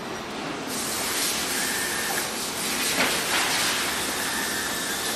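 Engine-plant factory-floor noise: a steady hiss of air over machinery, which gets louder about a second in. A faint high tone runs through it.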